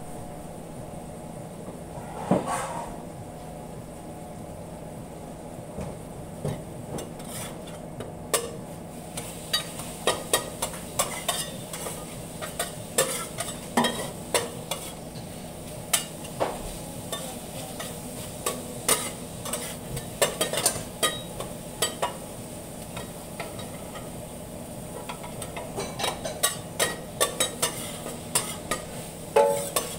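Beef and onions sizzling on a stainless steel flat-top griddle, with frequent irregular scrapes and clicks of metal tools against the griddle surface from about eight seconds in. A steady low hum runs underneath.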